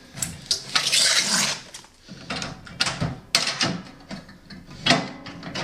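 Sheet-steel tool chest being handled: a run of metal clicks, clanks and rattles, with a short scraping rush about a second in.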